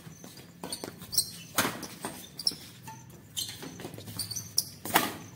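Badminton rackets striking a shuttlecock in a fast rally: several sharp hits, the loudest about a second and a half in and near the end, with short high squeaks and scuffs of shoes on the concrete court between them.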